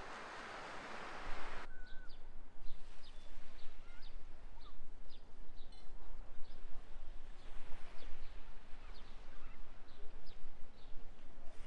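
A steady rushing noise cuts off about two seconds in, and small birds then chirp repeatedly with short, high chirps over a low outdoor background.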